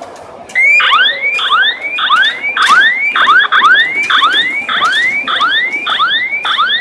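Electronic tone that sweeps quickly upward in pitch over and over, about one sweep every 0.6 s, with a steady higher tone above it. It starts suddenly about half a second in.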